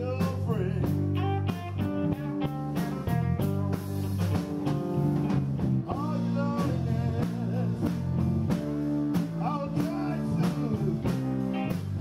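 Live blues band playing: electric guitars over drums, with bent guitar notes.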